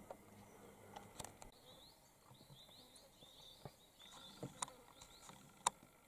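Faint bird chirping: a run of quick high notes lasting a couple of seconds, with a few sharp clicks scattered through, the loudest near the end.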